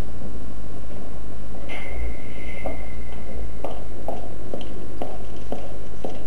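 Footsteps on a wooden floor, about two a second, over a steady low hum. A brief high squeak-like tone sounds just before the steps begin.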